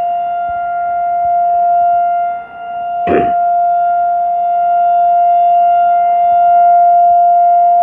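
Outdoor tornado siren sounding a loud, steady single-pitch tone, its volume dipping and swelling back about two and a half seconds in. A brief bump sounds about three seconds in.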